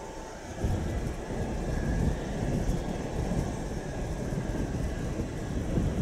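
Gusty wind buffeting the microphone over the low rumble of an ANA Boeing 777's jet engines on approach, in a typhoon crosswind. The rumble grows louder under a second in and keeps surging unevenly.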